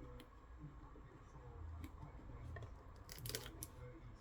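Light clicks and taps of small parts and tools being handled while a portable speaker is taken apart. A quick cluster of clicks comes a little past three seconds in.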